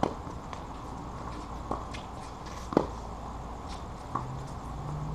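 Tennis ball being struck by rackets and bouncing on a hard court during a doubles rally: five sharp pops about a second apart, the loudest just past halfway.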